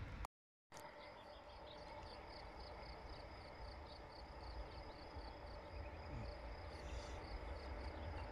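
Quiet outdoor ambience: a steady low rumble of wind on the microphone with a faint high chirp repeating evenly, about three times a second. A brief gap of silence near the start.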